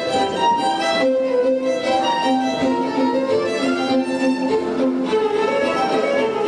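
Two violins playing a tune together, a steady run of bowed notes with more than one pitch often sounding at once.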